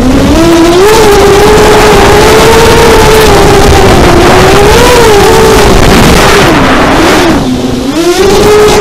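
FPV model aircraft's electric motor and propeller whining loudly from the onboard camera, with rushing air noise, the pitch wandering up and down with the throttle. About seven and a half seconds in the pitch drops and the sound eases off as the throttle is cut, then the whine climbs back up.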